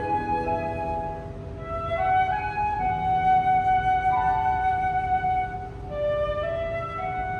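Instrumental background music: a slow melody of long held notes over a steady sustained lower note.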